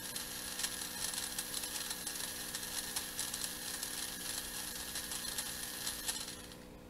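Small DC gear motors of a breadboard robot spinning with the wheels held off the ground: a steady whir with rapid gear clicking. It cuts out about six seconds in, as the board resets for the new program upload.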